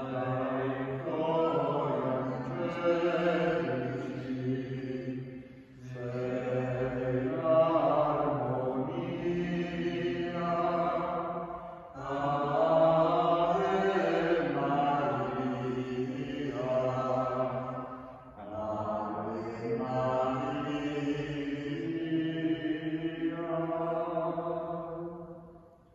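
Liturgical chant sung by low, male-range voices in four long phrases of about six seconds each, with held notes that glide between pitches.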